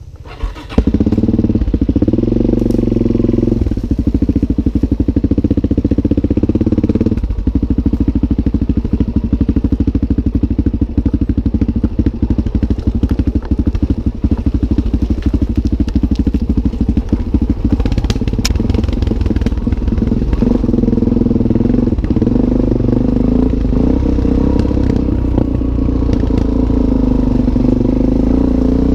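2002 Suzuki DR-Z400S's single-cylinder four-stroke engine starting up just under a second in, then running loudly while the bike is ridden, its note rising and falling with the throttle.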